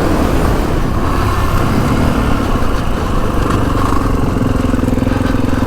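Kawasaki KX450X single-cylinder four-stroke engine running at a steady pace under way, holding an even pitch.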